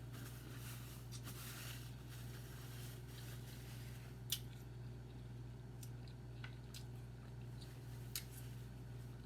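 Faint chewing and crunching of an apple snack, with scattered sharp clicks, the loudest about four seconds in and another near the end, over a steady low hum.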